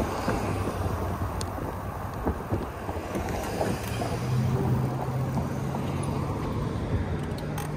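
Wind rushing over the microphone and low rumble of a bike in motion on the trail. A steady low hum comes in about halfway through.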